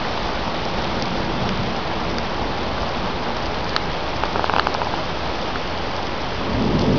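Heavy rain pouring steadily onto pavement and parked cars, a dense, even hiss. A low rumble swells in near the end.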